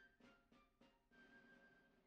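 Faint background music: a light melody of short notes, the last one held for about a second.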